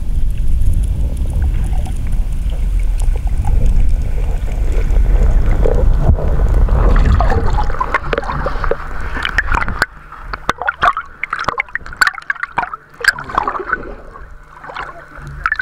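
Seawater on a moving camera: a low rumble of water rushing past for the first few seconds, then splashing and gurgling as the camera breaks the choppy surface, and from about ten seconds in, underwater again, a run of sharp clicks and bubbly pops.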